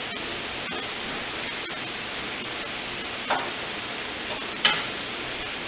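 Sausage, peppers and potatoes sizzling steadily on a gas flat-top griddle, with two brief knocks about three and four and a half seconds in.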